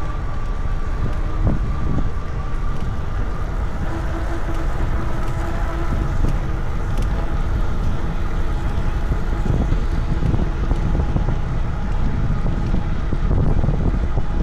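Wind buffeting a bike-mounted camera's microphone while riding an electric bike, with a steady low rumble and a faint steady whine.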